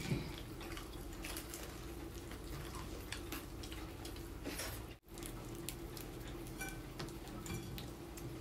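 Close-up eating sounds: wet chewing and lip smacking with scattered small clicks and crunches from eating crisp fried chicken by hand.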